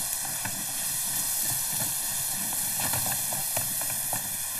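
Long wooden rolling pin rolling out a sheet of dough on a floured wooden board, a soft irregular low rumble with a few faint ticks under a steady hiss.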